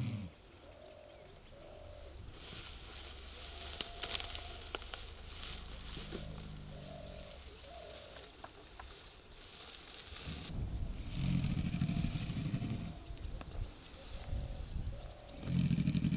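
Tall dry grass rustling and crackling with many sharp snaps, as people and a young Asian elephant move through it, loudest from a few seconds in until about two thirds of the way through.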